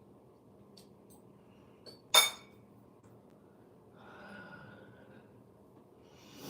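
A single sharp clink about two seconds in, a hard object striking something that rings briefly, over low room tone. Around four seconds in there is a soft breath-like sound.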